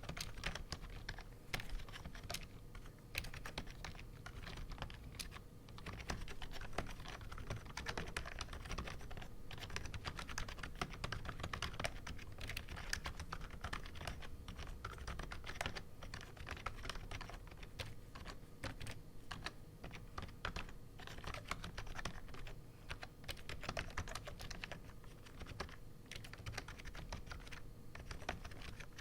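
Continuous typing on an AppleDesign Keyboard with Alps slider-over-dome switches and PBT dye-sub keycaps: a quick, uneven stream of key clicks and clacks. A faint steady hum sits underneath.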